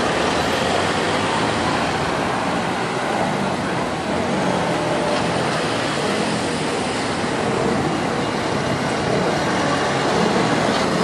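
Road traffic moving slowly at close range: the engines and tyres of a minibus, a pickup and cars make a steady drone.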